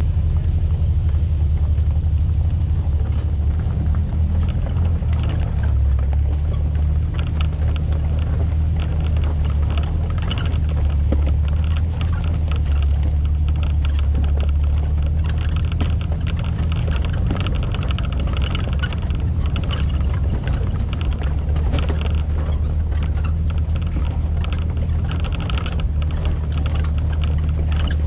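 Off-road SUV driving slowly along a rocky dirt trail: a steady low rumble of engine and drivetrain, with tyres crackling and crunching over loose gravel and rock.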